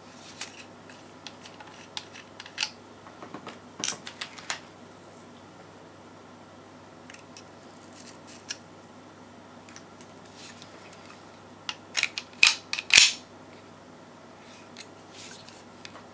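Clicks and clacks of a Walther P99 PAK blank pistol being handled and stripped, its slide and recoil spring assembly coming apart. The clicks are scattered, with a sharp cluster of louder clacks about three-quarters of the way through.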